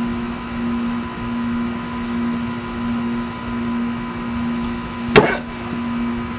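A Latin-style machete stabbed into a cardboard box, one sharp impact about five seconds in, over a steady hum.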